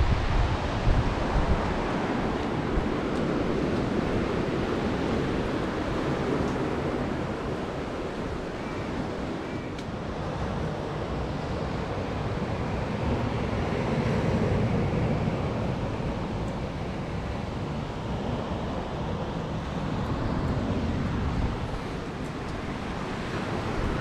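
Black Sea surf washing steadily onto a pebble beach, with wind buffeting the microphone, gusting hardest about a second in.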